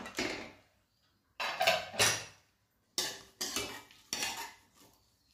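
Stainless steel pressure cooker lid clanking as it is lifted off. Then a metal spoon scrapes and knocks against the inside of the steel pot in three short bouts of stirring.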